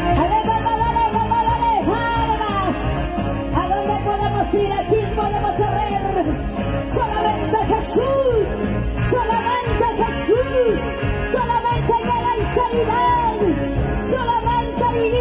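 Live Christian praise music from a band: a singing lead melody with sliding pitch over a steady beat, with no pause.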